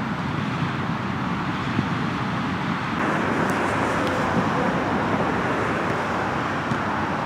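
Steady hiss of passing road traffic, a little louder from about three seconds in, with a few faint knocks.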